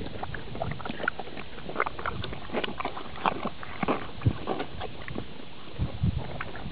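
A horse slurping and sucking up the sloppy, heavily watered-down remains of a bran feed from a feed bucket: a rapid, irregular run of short wet slurps and lip smacks.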